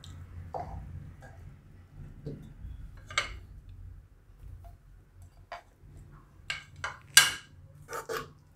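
A perforated metal spatula scraping and knocking against a nonstick wok and a white serving dish as cooked food is scooped out and served. A few scattered clicks and scrapes, then a quick run of knocks near the end, the loudest of them about seven seconds in.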